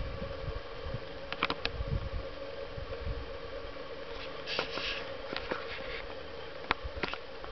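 Outdoor field ambience: low wind buffeting the microphone, strongest in the first few seconds, under a faint steady hum, with a brief rustle near the middle and a few sharp clicks.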